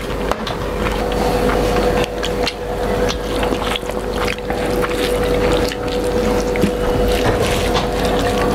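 Fingers mixing rice and curry on stainless steel plates, with chewing and many small clicks and squelches, over a steady hum.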